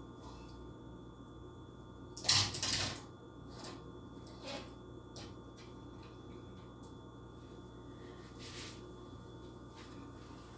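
Handling noise from packaged toy cars being picked up and moved: a brief clatter and rustle of plastic packaging about two seconds in, then a few soft clicks, over a steady low hum.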